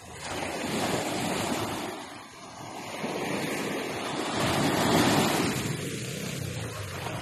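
Waves washing in: a steady rushing noise that swells about a second in, eases, and swells again louder around the middle before settling.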